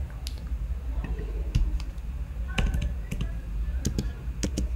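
Computer keyboard being typed on: scattered, irregular keystrokes while code is edited, over a low steady hum.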